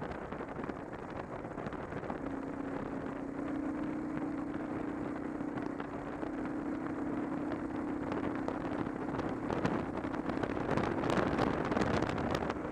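Motorcycle engine drone at cruising speed under wind rushing over the microphone. The engine note steps up a little in pitch twice, and the wind grows gustier and louder near the end.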